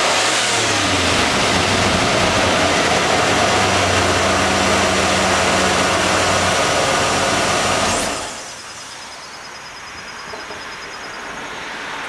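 1996 Ford Bronco's 351 Windsor V8 idling steadily through its stock exhaust and long factory muffler, then cutting off about eight seconds in as the engine is shut down.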